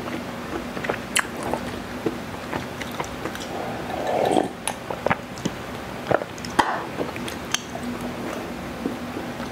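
A person drinking from a glass close to the microphone: gulps and swallows, the longest about four seconds in, with small mouth and lip clicks between them.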